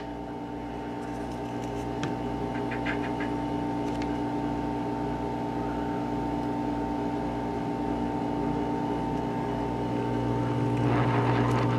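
Hot-air rework station running: a steady mechanical hum from its air blower, with a slow low pulsing underneath, growing a little louder near the end.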